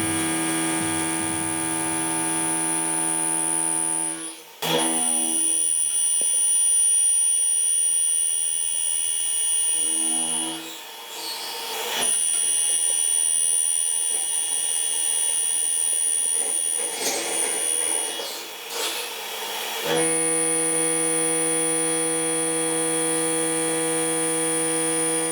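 Machine tool running with a steady electric hum and a high, thin whine. The sound breaks off into brief noisy gaps three times, then the same hum and whine resume.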